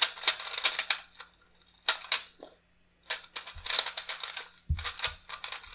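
GAN 356 i Carry smart speedcube being turned quickly during a solve: its plastic layers clack in several rapid flurries of turns with short pauses between them.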